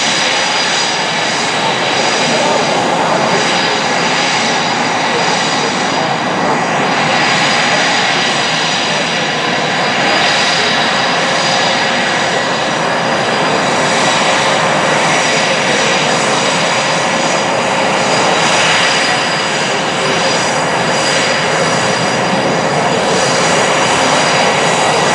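F-16 fighter's jet engine running at low taxi power: a loud, steady exhaust rush with a high whine over it.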